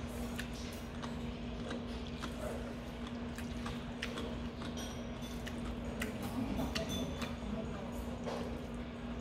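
Someone eating jjajangmyeon: metal chopsticks clicking now and then against the noodle bowl, with chewing, over a steady low hum.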